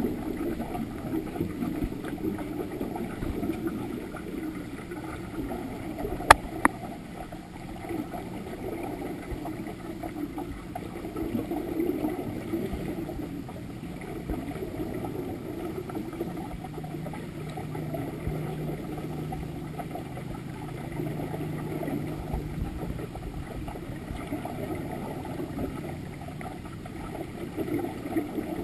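Muffled underwater gurgling of scuba exhaust bubbles and regulator breathing, heard through the water. There is a sharp click about six seconds in, and a low steady hum for several seconds past the middle.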